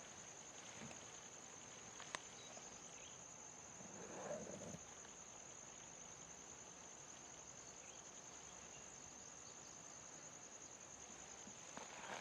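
Faint, steady, high-pitched trill of insects, with a single sharp click about two seconds in and a brief rustle about four seconds in.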